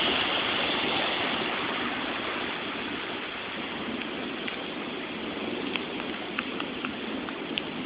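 A steady rush of water, like rainwater running off, easing over the first few seconds, with scattered light drip-like ticks in the second half.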